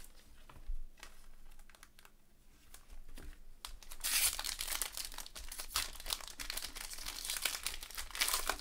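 A foil trading-card pack being torn open and crinkled in gloved hands. The dense crinkling starts about four seconds in; before that there are only faint light clicks.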